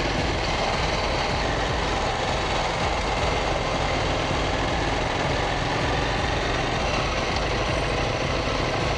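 KTM 790 Duke's parallel-twin engine running at a steady, low road speed under the rider, mixed with an even rush of road and wind noise.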